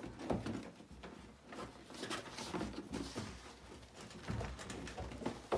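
A cardboard shoebox being handled: scattered light knocks, scrapes and rustles as it is moved and set down, with one sharper knock near the end.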